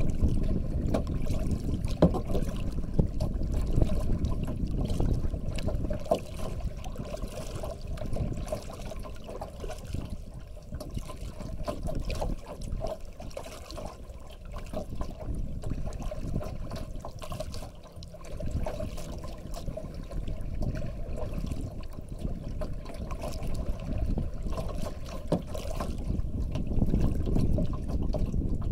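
Water trickling and lapping against a kayak's hull, with many small drips and splashes, steady throughout and a little louder at the start and near the end.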